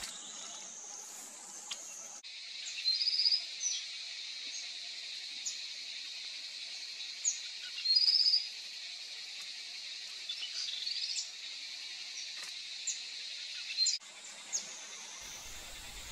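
Steady high drone of forest insects, with a small bird giving short, high trilled calls about three seconds and eight seconds in, and scattered single chirps between. The insect drone changes pitch abruptly at about two seconds and near the end.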